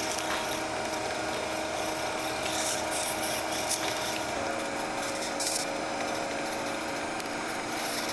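Shoe-repair machine running steadily as the edge of a newly attached rubber sole is worked against it for trimming. Its motor hum drops slightly in pitch about four seconds in.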